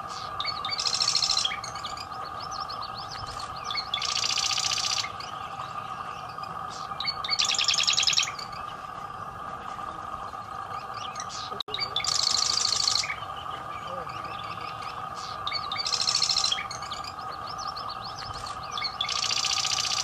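Marsh wren singing: six songs, one every three to four seconds, each a rapid rattling trill about a second long. A steady hum runs underneath.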